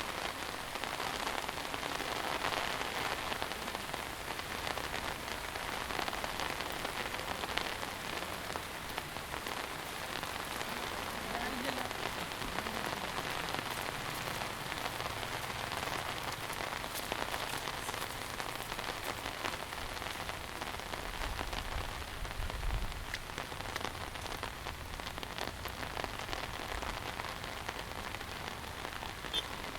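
Heavy monsoon rain falling steadily, a dense, even hiss of drops hitting surfaces, with no break in it.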